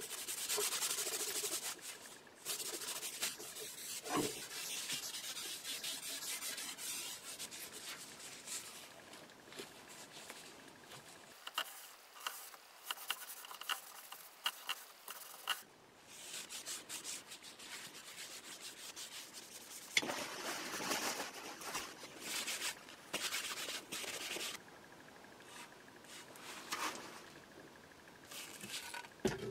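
Paper towel rubbed and wiped over a steel billhook blade during cold bluing, in strokes that start and stop, with a few small clicks.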